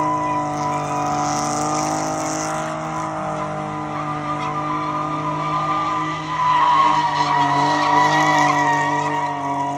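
Car doing donuts on asphalt: the engine is held at steady high revs while the rear tyres spin and squeal, getting louder about two-thirds of the way through.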